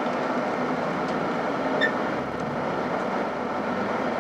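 Steady road noise and engine hum heard from inside a moving vehicle, with one short high squeak a little before the middle.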